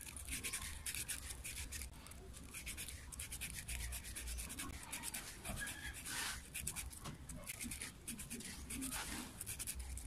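Rapid, irregular scratching, rubbing and small clicks of hands handling an angle grinder armature, working a rubber cap on the shaft beside the commutator.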